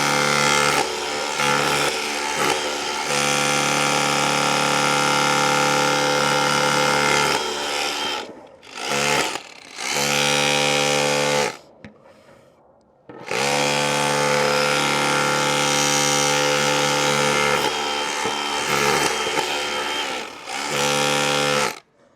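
DeWalt DCH263R2 cordless rotary hammer running in chipping mode, hammering a chisel bit into a wall. It runs in long stretches, drops out briefly twice about eight and nine seconds in, stops for about a second and a half near the middle, then runs again and cuts off near the end.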